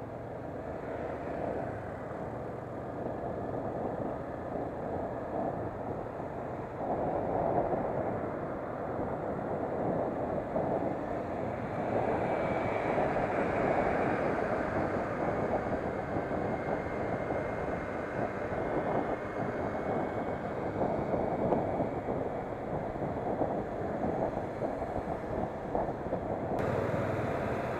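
Wind rushing over the microphone together with the running noise of a motorcycle ridden at about 50 km/h, a steady rush that grows louder over the first several seconds as the bike picks up speed.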